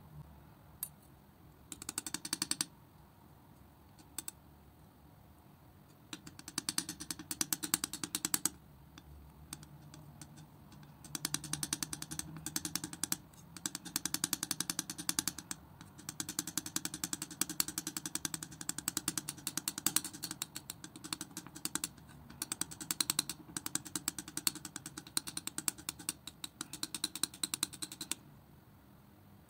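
Metal palette knife mixing and spreading thick wet acrylic paint on a smooth surface: rapid clicking from the paint under the blade, in bursts of a few seconds with short pauses between strokes.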